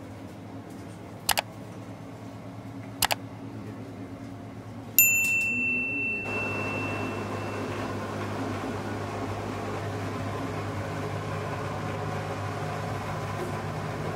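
Commercial kitchen background with a steady fan-like hum and two light clicks. About five seconds in, a sharp metallic ting rings for a couple of seconds. After that, a louder steady whoosh of air-handling noise carries on.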